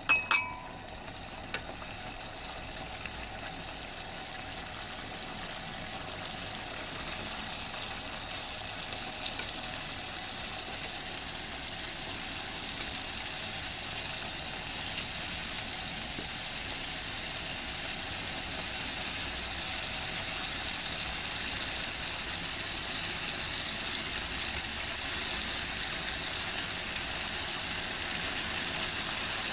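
Mapo tofu sauce in a hot sandwich pan over a gas burner, sizzling and bubbling as it comes up to a simmer, a steady hiss that grows gradually louder. A sharp ringing clink right at the start.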